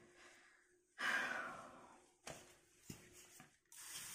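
A woman's sigh about a second in: a breathy exhale that fades over about a second. A few faint clicks and a short breathy hiss follow near the end.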